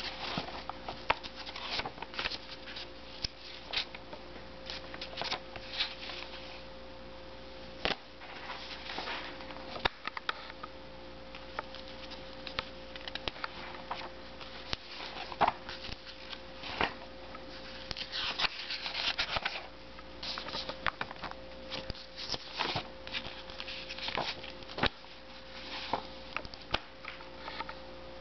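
Old paper comic books being handled and leafed through: irregular rustles and soft clicks of pages and covers, over a faint steady hum.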